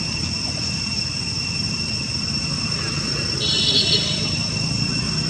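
Outdoor ambience: a steady high-pitched insect drone over a low rumble, with a brief high-pitched call about three and a half seconds in.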